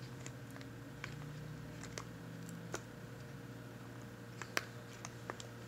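About ten light clicks and taps, scattered irregularly, as agar gummy bears are taken out of their mold and set down on a ceramic plate, over a faint steady hum.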